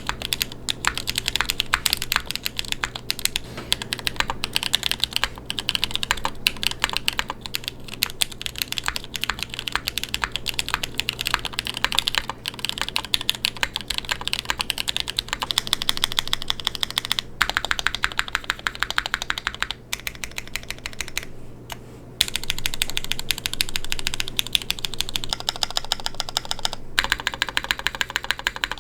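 Typing on a DriftMechanics Forever65 mechanical keyboard with KNCKeys Crinkle Cookie tactile switches, a carbon fiber plate and GMK keycaps: fast, steady keystrokes, broken by a few short pauses where the sound test changes over.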